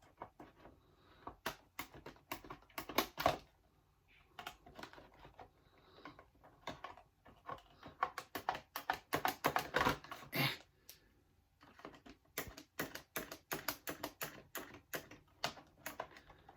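Toy box packaging being handled and pulled apart by hand: irregular runs of quick clicks and crackles in bursts, with short pauses between.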